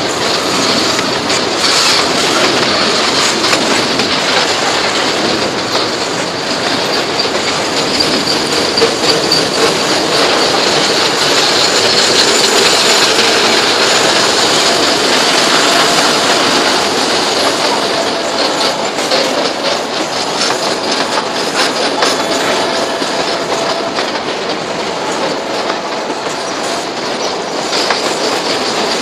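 Tank cars of a metre-gauge freight train rolling past close by: a steady rumble of steel wheels on rail with rapid clicking as the wheels cross rail joints.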